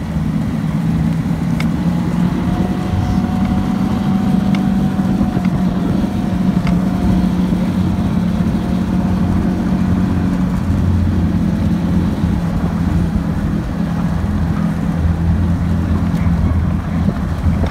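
Snowmobile engine running steadily as it travels along a snow trail, a continuous low drone.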